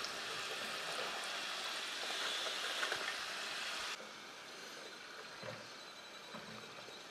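Hot oil sizzling as deep-fried potato fries are lifted out with a mesh strainer. The sizzle cuts down abruptly about four seconds in, leaving a quieter sizzle with a few faint clicks.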